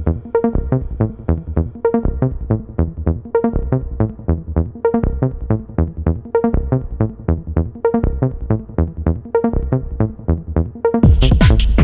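Electronic background music with a steady beat; near the end it turns louder and fuller.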